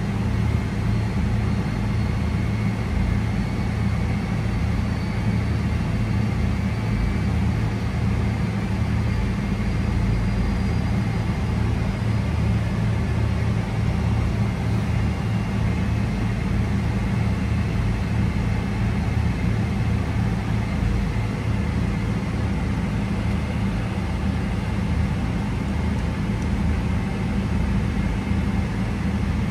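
Steady low rumble of cabin noise inside a Boeing 777-300ER airliner, with an even hiss above it and no change throughout.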